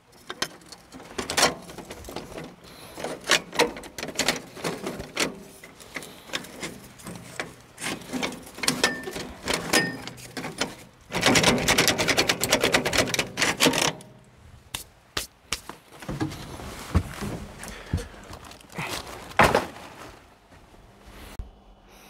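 Telescopic aluminium ladder clicking and clattering as its sections are handled and fitted to the caravan's door sill, a run of sharp clicks and knocks with a denser rattle for about three seconds around the middle.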